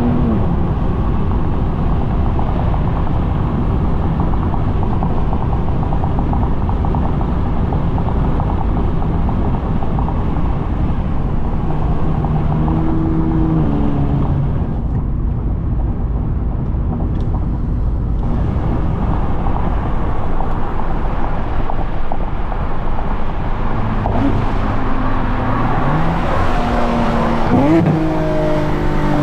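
JB4-tuned Infiniti Q60 engine pulling hard under acceleration, its pitch climbing and then dropping at upshifts around the middle and near the end, over steady loud road and wind noise.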